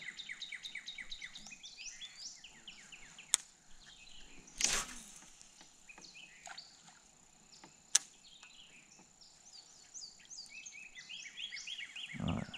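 A dense chorus of small animals chirping on the riverbank, many quick chirps a second, over a thin steady high whine. Two sharp clicks and one short rushing noise break through near the middle.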